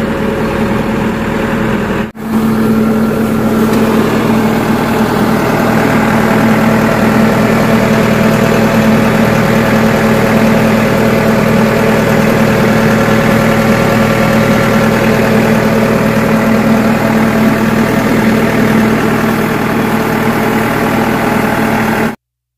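Excavator's diesel engine running steadily, with a very brief break about two seconds in; the sound cuts off abruptly near the end.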